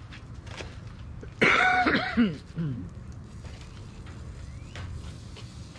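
A person coughs and clears their throat once, a harsh burst about a second and a half in that lasts about a second and trails off.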